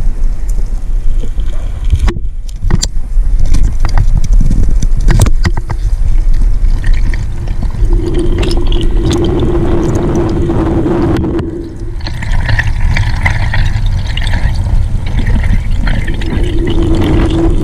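Underwater camera sound of water rushing and rumbling around the housing as the diver swims up, with scattered clicks and knocks in the first few seconds. A steady hum comes in about eight seconds in, stops, and returns near the end.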